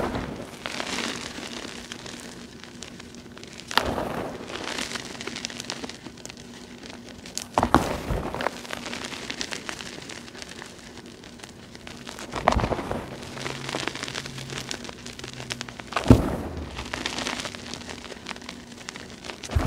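Crushed gym chalk, partly dyed, squeezed and crumbled by hand into a gritty mass: a sharp crunch about every four seconds, each fading off into fine crackling.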